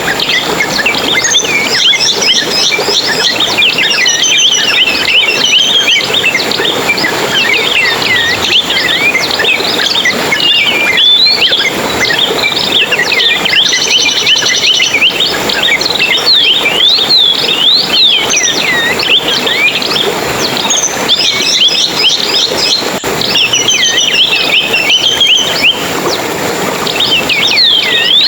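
Many small songbirds chirping and twittering at once: a dense, loud chorus of quick, high, overlapping sweeping calls with no pause.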